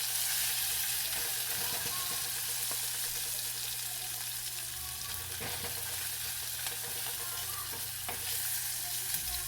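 Spice-marinated, already-cooked chicken pieces sizzling steadily as they shallow-fry in a little oil in a pan, with a few light scrapes of stirring.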